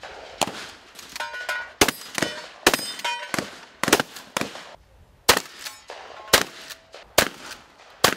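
Shotguns firing a fast, irregular string of shots, about two a second, each report with a short echoing tail, with brief metallic ringing between some of them.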